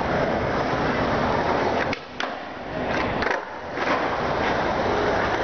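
Skateboard wheels rolling over a concrete skatepark bowl, with a few sharp clacks of the board about two and three seconds in.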